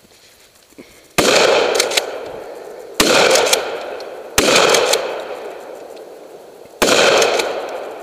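Four shotgun shots, about a second and a half apart, each followed by a long fading echo, with brief clicks after the first two.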